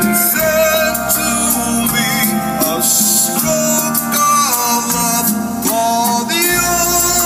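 A song with a voice singing over guitar, played loud on a car audio system.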